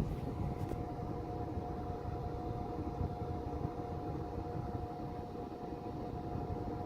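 Forced-air heating from a running 2002 Lennox Elite gas furnace: steady rush of air from a basement supply vent, with a faint steady hum from the blower.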